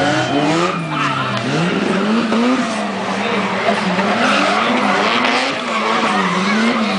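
Drift car engine revving hard, its pitch rising and falling several times as the driver works the throttle through a slide, with tyres skidding.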